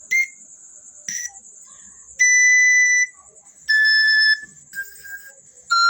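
Pan flute played in its high register: a few short breathy notes, then longer held notes that step down in pitch toward the end.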